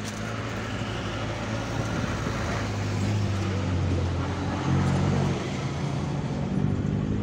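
A vehicle engine running steadily with a low hum, getting louder over the first few seconds.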